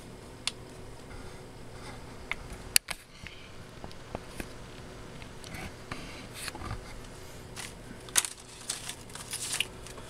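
Scattered light clicks and knocks from handling a hand-held camera and a laptop, one sharp click about three seconds in, over a faint steady hum.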